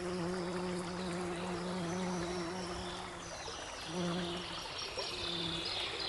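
A babbling brook runs under a bee's steady buzzing hum, which breaks off about three seconds in and then comes back in short spurts. Birds chirp in the second half.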